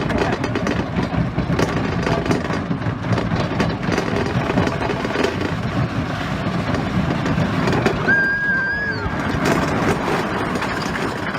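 Wooden roller coaster train rattling and rumbling along its track, with dense rapid clatter from the wheels, and a brief high squeal about eight seconds in.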